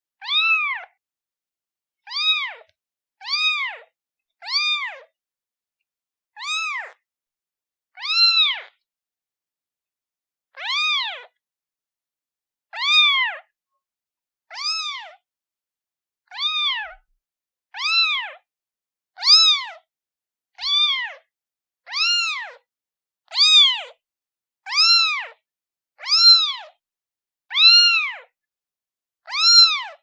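Kitten meowing over and over, about nineteen short high-pitched meows, each rising then falling in pitch, one every second or two.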